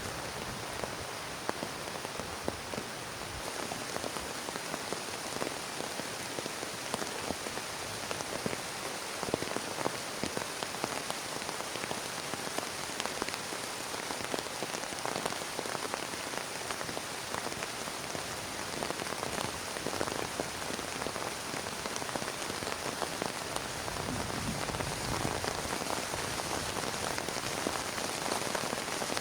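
Heavy rain falling steadily, with many individual drops ticking sharply on a close surface. It grows slightly louder near the end.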